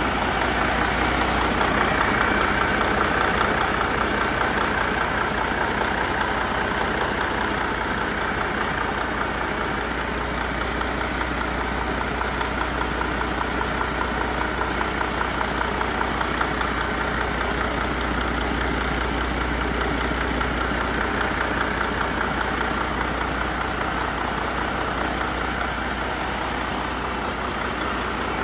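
2018 Detroit DD13 12.8-litre inline-six diesel engine idling steadily with an even, fast diesel clatter, run on a stand to test the used engine, its oil pressure gauge holding about 60 psi.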